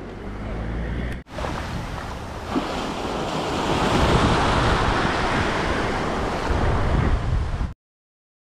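Waves breaking and washing through the shallows, with wind buffeting the microphone. The sound drops out for an instant about a second in, grows louder, then cuts off abruptly near the end.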